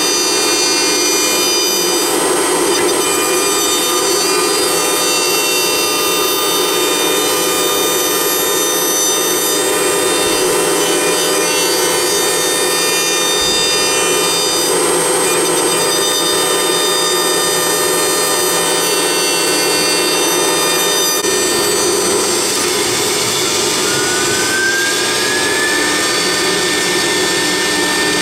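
Blue Elephant CNC router spindle running with a steady whine while its small bit carves a wooden column turning on the rotary axis, with the rough hiss of the cut wood. Near the end a tone rises briefly.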